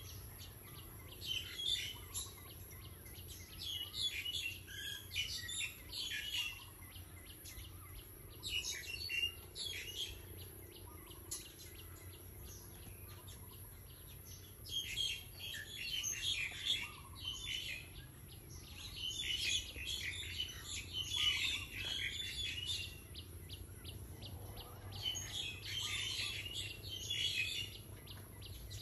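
Birds chirping in repeated bouts of quick, high calls, with a faint steady high-pitched hiss underneath.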